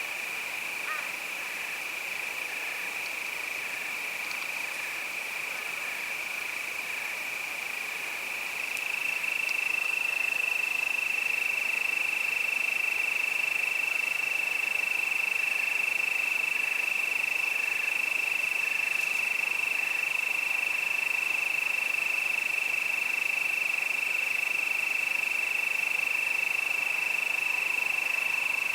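Crickets singing in a steady high trill that grows louder about nine seconds in, with fainter, evenly spaced chirps beneath it.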